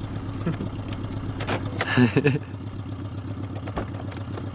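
Old cafe-racer motorcycle engine idling steadily, with a short, louder burst of sound about two seconds in.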